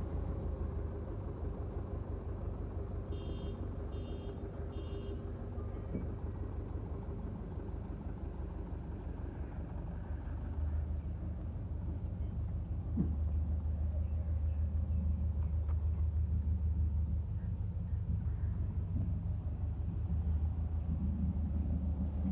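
Steady low rumble of an engine running, growing louder about halfway through. Three short high beeps sound a few seconds in.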